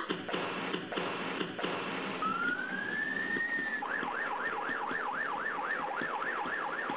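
Ambulance electronic siren. About two seconds in it rises in one long wail, then switches to a fast yelp of about four up-and-down sweeps a second, over a steady rush of noise.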